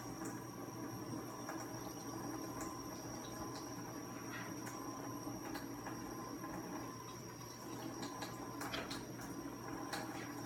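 Faint, irregular sticky clicks and squelches of hands working homemade glue-and-borax slime, a few stronger ones near the end, over a steady electrical hum and a high whine.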